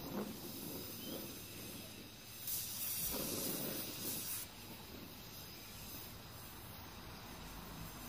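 Gas brazing torch flame hissing steadily as it heats a copper tube joint on a refrigerator compressor's stub for silver brazing; the hiss swells louder for about two seconds in the middle.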